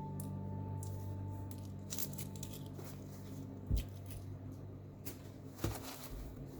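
Small handling noises: light rustling and clicks, with two soft thumps, while a low ringing tone dies away over the first few seconds.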